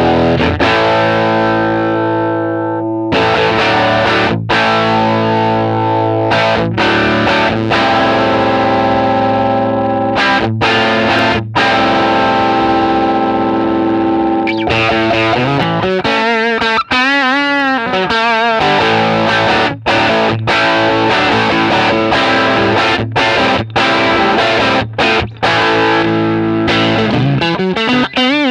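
Electric guitar played with heavy distortion through a Fender Pro Junior valve amp: held chords and notes, with bent, wavering notes about halfway through and again near the end.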